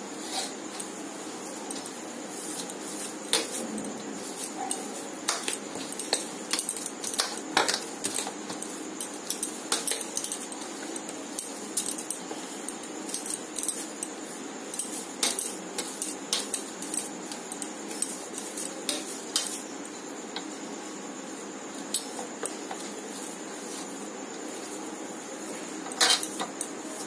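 Bangles clinking against each other and against a metal plate while hands knead chhena on it: irregular light clicks and taps, with a steady faint hiss beneath.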